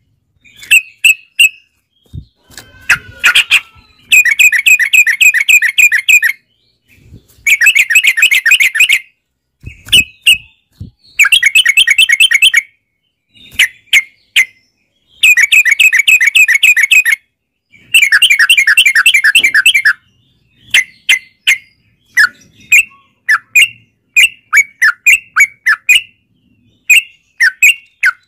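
Yellow-vented bulbul song: bouts of rapid, bubbly chattering about two seconds long with short pauses between. In the last third these give way to a run of separate short, clipped calls.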